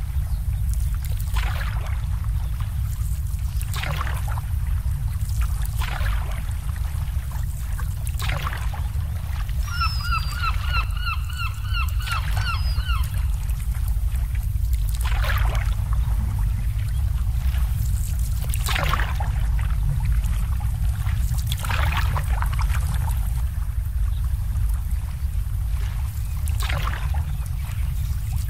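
Small waves lapping against moored boats, a soft splash every two seconds or so over a steady low rumble. About ten seconds in, a bird gives a quick run of short, identical calls, about three a second, for roughly three seconds.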